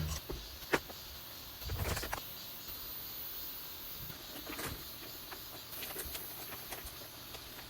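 Faint background ambience with scattered light clicks and knocks, a few sharper ones about a second in and around two and four and a half seconds in.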